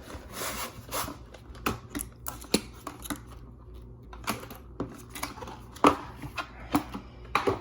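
Hands handling and unwrapping packaging from a gaming mouse box: irregular taps, clicks and short rustles, a dozen or so scattered through, with a sharper knock near the middle.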